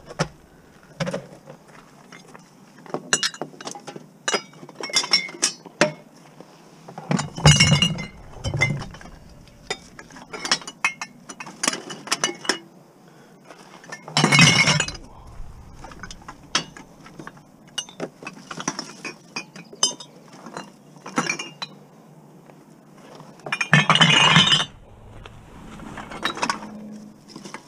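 Empty glass bottles clinking and knocking together as they are handled and dropped into a plastic bin. Three times there is a louder clatter lasting about a second, when several bottles go in at once.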